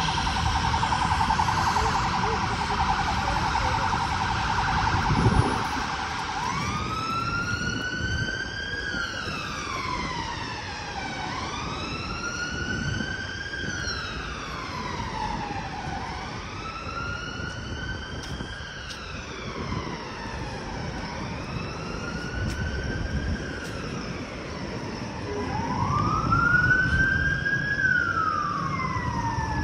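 Emergency vehicle siren, first in a fast yelp, then switching about six seconds in to a slow wail that rises and falls about every five seconds, over street traffic noise. A brief thump about five seconds in.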